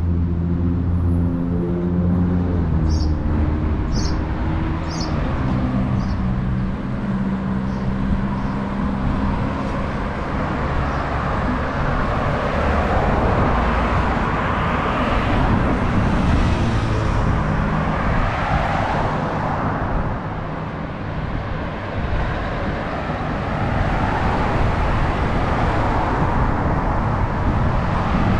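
Street traffic: a vehicle's engine idling close by with a low steady hum, then one or more vehicles passing with a rush that swells and fades over several seconds. A few short high chirps come near the start.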